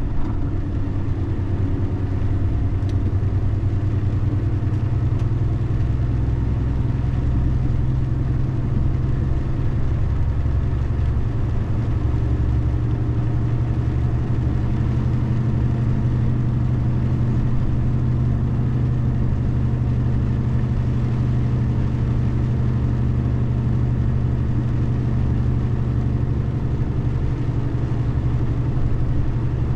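A car driving at a steady pace: a steady low engine hum with road noise.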